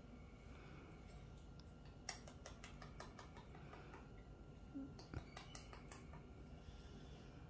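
Near silence: room tone, broken by two short runs of soft clicks, one about two seconds in and another about five seconds in.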